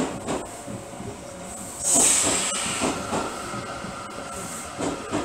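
Odakyu Romancecar MSE passing on the adjacent track, its wheels clunking in pairs over the rail joints and points, over a steady hum. A loud burst of hiss starts about two seconds in and fades away.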